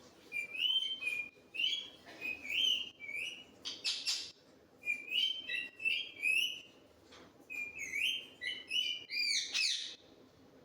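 Parrot chirping and whistling in short, repeated calls that rise and fall in pitch, with a harsher, noisier call about four seconds in. The calls stop about ten seconds in.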